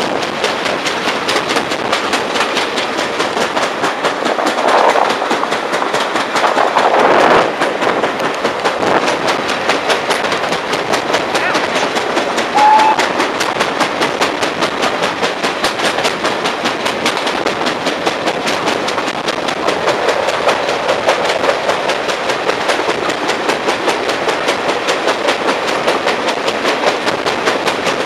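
Railway carriage running at speed, its wheels on the track giving a rapid, even beat of knocks from a flat spot worn on one wheel.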